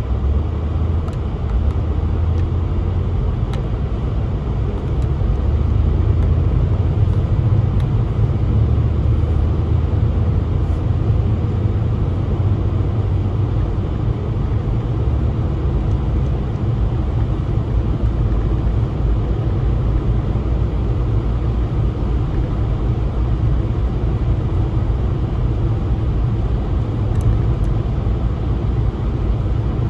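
Steady low rumble of a car being driven, engine and road noise, with no marked changes in speed.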